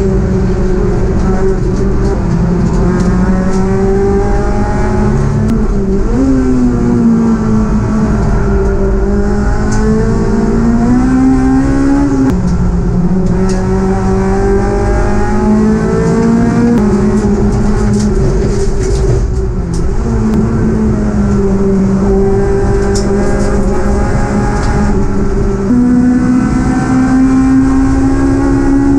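Honda Civic Type R (EP3) race car's 2.0-litre four-cylinder engine heard from inside the cockpit at racing speed, its note climbing through the revs and jumping at gear changes several times, over steady road and wind noise.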